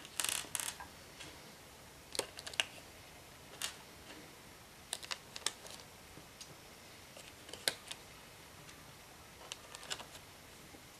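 Scattered light clicks and taps in irregular clusters of a few at a time, from a plastic car instrument cluster being handled and worked on.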